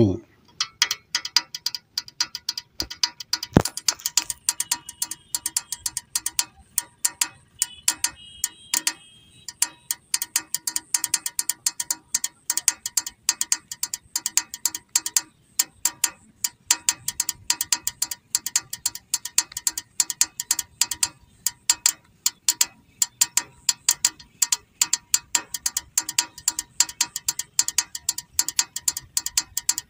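Small plastic toy car's gear mechanism clicking rapidly and unevenly, ratchet-like, as the car is pressed down and rolled back and forth by hand on stone, with a short pause about nine and a half seconds in.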